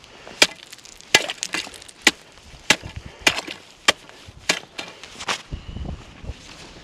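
About eight sharp, cracking knocks on thin lake ice, coming at a fairly even pace of one every half-second or so.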